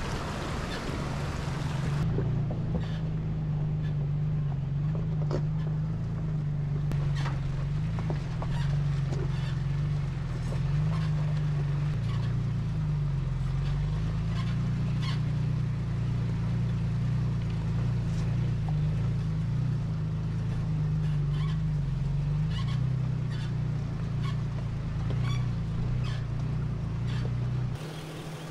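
A motor running steadily, a low drone with a slightly wavering pitch. It cuts in about two seconds in, after a stretch of wind noise, and cuts off just before the end.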